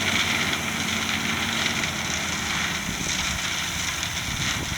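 Heavy earth-moving equipment's engine running steadily under an even hiss, its low hum fading out about two seconds in.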